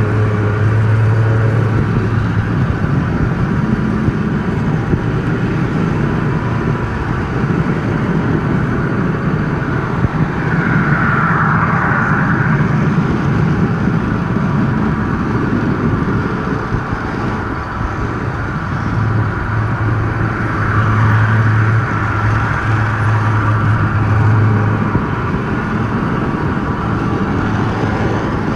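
Model train rolling along its track, heard from a camera riding on it: a steady rumble of wheels on rail and the drive motor, with a low hum that comes in at the start and again about two-thirds of the way through.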